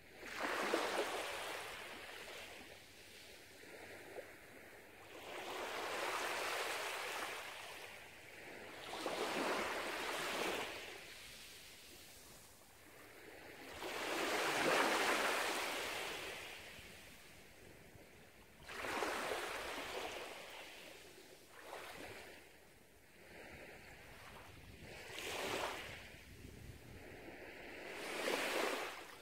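Small waves washing up on a sandy beach, about eight swells in a row, each rising and falling away over a second or two.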